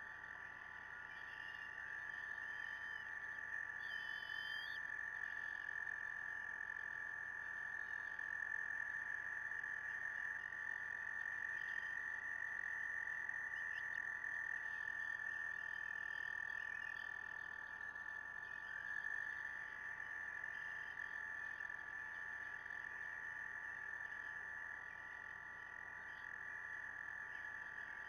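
A chorus of frogs: several long, steady, high trills overlapping, with one voice joining or dropping out now and then.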